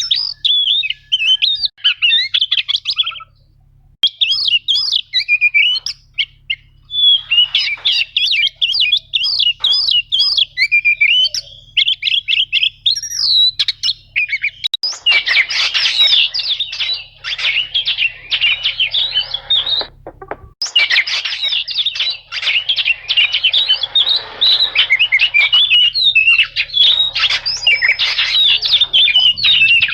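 Oriental magpie-robin (kacer) singing a long, fast run of chattering, rolling phrases, high and loud, broken only by brief pauses about three seconds in and near twenty seconds in.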